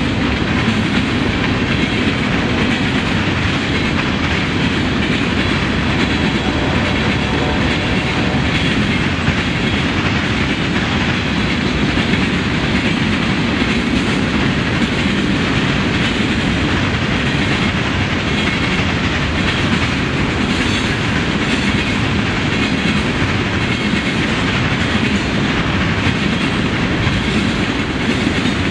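Freight cars of a passing train rolling by, a steady, unbroken noise with no horn.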